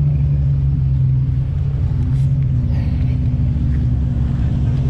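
Car engine idling: a loud, steady low drone that holds one pitch throughout.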